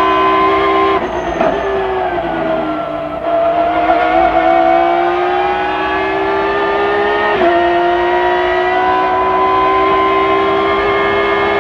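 BMW M3 GT2 race car's engine at racing speed, heard on board. The revs drop with quick downshifts about a second in, then climb steadily. There is a brief break for a gear change about seven seconds in, after which they climb again.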